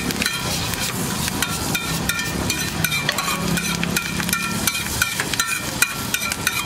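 Metal spatula scraping and tapping on a flat iron tawa as an egg omelette is stirred and fries, giving many quick clicks and scrapes.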